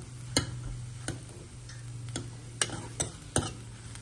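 Spatula clicking and scraping against the pan while a masala is stirred and sautéed, about six irregular sharp taps with a faint sizzle under them. A steady low hum runs underneath.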